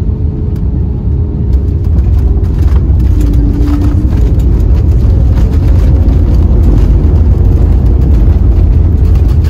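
Loud, steady low rumble inside an airliner's cabin: engine and airflow noise in flight. It grows louder about two seconds in, then holds steady.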